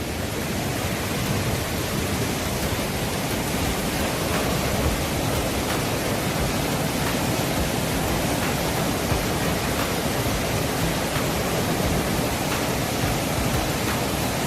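Steady rushing noise of heavy rain from a tropical storm, with a few faint ticks.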